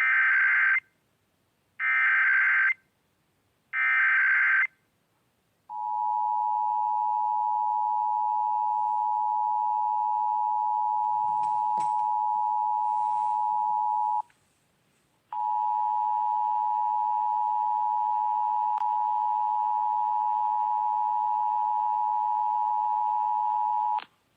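Emergency Alert System tones on an FM radio broadcast: three short bursts of SAME digital header data, about two seconds apart, then the two-tone EAS attention signal. The attention signal is a steady two-note tone that runs about eight seconds, breaks off for about a second, then runs about eight seconds more before cutting off abruptly.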